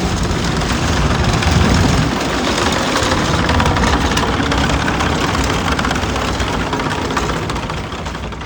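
A vehicle engine running with a steady rumble, loudest about a second and a half in and easing off near the end.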